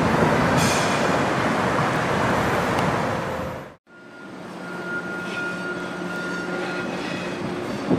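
General Electric 65-ton center-cab diesel switcher running close by, a loud, dense rumble of engine and rolling stock. It cuts out suddenly about four seconds in, then returns quieter and more distant, with a low steady hum and a steady high tone lasting a couple of seconds.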